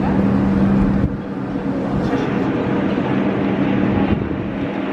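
Metro train standing at the platform with its doors open, its equipment giving a steady low hum.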